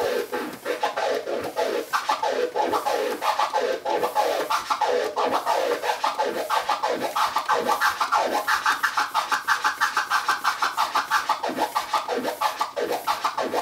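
Turntable scratching: a record sample is pushed back and forth by hand while the mixer's crossfader is clicked open and shut, chopping each stroke into short bursts. This is continuous crossfader clicking that moves through flares and two- and four-click orbits. The chops come faster and higher about eight seconds in and stay that way for a few seconds.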